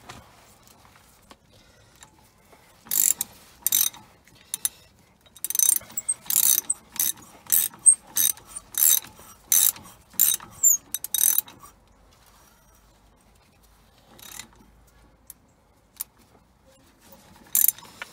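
Half-inch ratchet clicking in short bursts as it is swung back and forth, turning an M14 tap that re-cuts a cross-threaded wheel-bolt hole in a wheel hub. A few bursts come about three seconds in, a quick run of them follows for several seconds, then a lull, then more clicks near the end.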